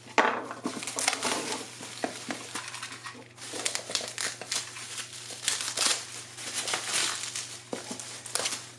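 Plastic bubble wrap crinkling and rustling as it is pulled and peeled off a cardboard box, with many irregular crackles.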